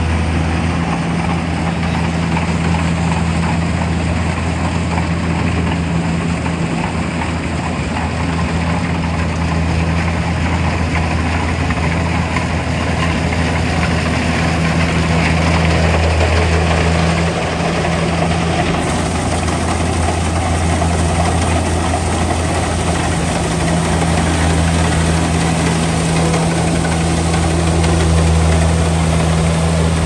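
Kubota DC-105X crawler combine harvester running steadily while harvesting rice: a continuous low engine hum with machinery noise over it.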